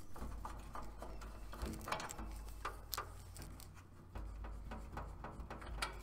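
Light, irregular clicks and taps of brass refrigerant hose fittings being handled and unscrewed at an air conditioner's service valves, with a faint low rumble underneath.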